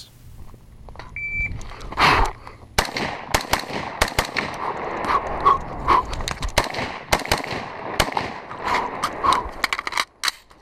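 Rifle shots fired on the move, sharp and irregular, mixed with the clatter of running. A brief high beep sounds about a second in, before the first shot.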